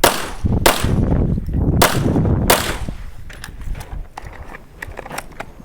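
Smith & Wesson M&P 9 pistol firing 9mm rounds during a timed IDPA stage: four loud shots in the first two and a half seconds, unevenly spaced, followed by fainter, sharper cracks and clicks.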